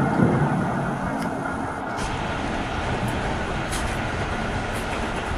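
Container flatcars of a freight train rolling past close by: steady noise of steel wheels on the rails, with a few faint clicks.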